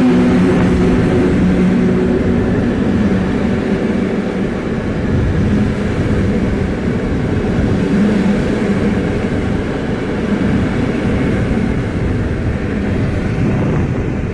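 Passenger train hauled by an EP07 electric locomotive passing at speed: a loud, steady rush and rumble of coach wheels on the rails, with a few steady tones from the locomotive fading out in the first couple of seconds.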